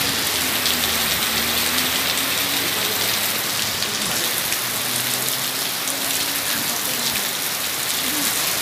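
Heavy tropical downpour falling steadily on wet paving, a dense even hiss.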